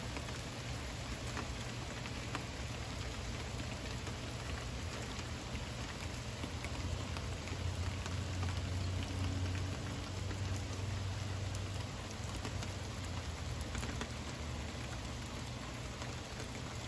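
Heavy rain falling steadily on pavement and foliage, with scattered drips close by. A low rumble swells about eight seconds in and fades a few seconds later.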